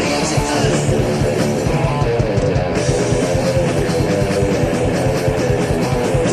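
Heavy metal band playing an instrumental passage: electric guitar riffing over bass and drums, without vocals.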